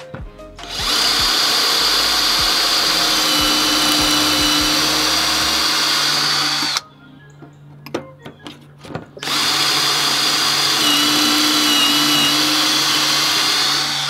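Drill boring pocket holes through plywood in a Kreg pocket-hole jig: two long runs of about six and five seconds, each a steady high whine from the bit cutting, with a few knocks in the pause between.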